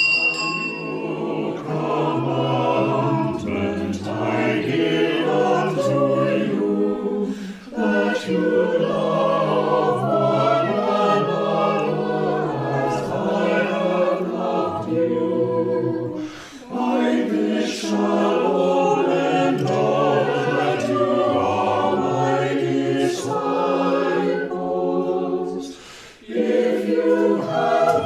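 Choir singing unaccompanied in harmony, in long phrases with brief breaks between them about 8, 16 and 26 seconds in.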